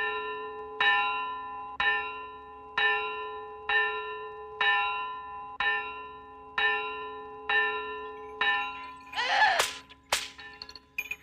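A single bell struck about once a second, ten times, each strike ringing the same note and fading before the next, on a film soundtrack sped up 2.7 times. Near the end a loud, brief high warbling sound cuts in, followed by a couple of sharp clicks.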